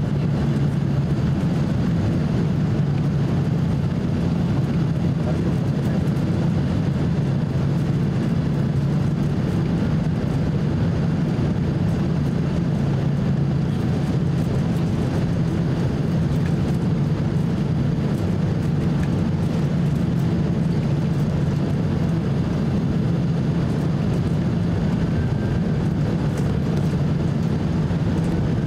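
Steady cabin roar inside a Boeing 767-300 on final approach: engine and airflow noise with a low, even hum, unchanging throughout.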